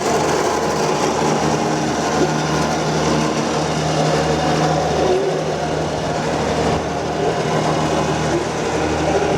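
Homemade elevator's electric drive running steadily as the cage descends, a low hum with mechanical rattle over it; it switches on suddenly at the start.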